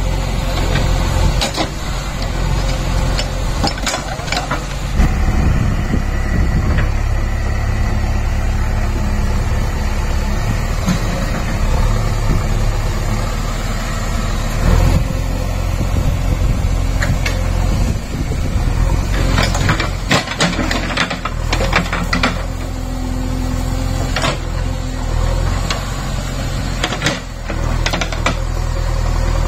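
JCB 3DX backhoe loader's diesel engine running steadily under digging work, with occasional sharp knocks and clanks from the backhoe bucket and arm, several of them close together about twenty seconds in.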